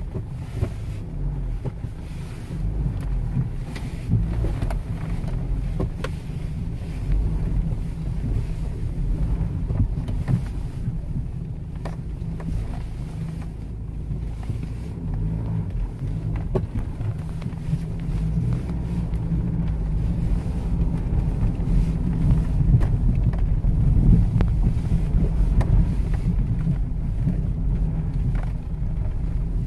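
Car on the move: a steady low rumble of road and engine noise, growing somewhat louder in the second half.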